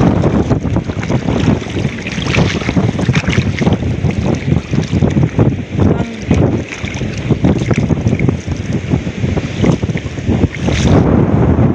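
Strong wind buffeting the microphone: a loud low rumble that swells and dips in gusts.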